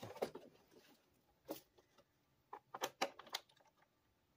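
Faint, scattered scrapes and short clicks of hands picking at foam and tape on an old plastic A/C cover to uncover a Phillips screw.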